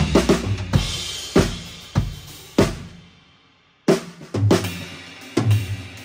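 Acoustic drum kit being played: busy bass drum and snare playing stops under a second in, followed by a few spaced accented hits whose cymbal wash fades away almost to silence about halfway through. The kit then comes back in with more hits and settles into a groove.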